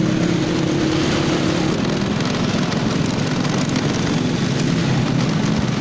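Motorcycle engine running steadily while riding, a low even hum under rushing wind and road noise.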